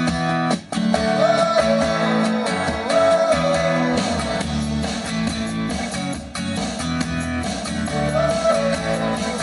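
Rock music with electric guitar playing loudly through a car stereo built around a Kicker L5 10-inch subwoofer driven by a bridged Pioneer 820-watt amp. It opens with a few clipped stop-start chords, then runs on steadily with a sung melody over the guitars.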